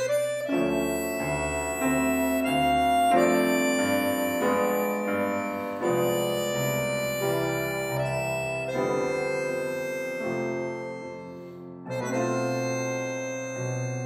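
Button accordion and C. Bechstein grand piano playing together. The accordion holds sustained chords and lines over the piano, and the harmony shifts every second or two without a break.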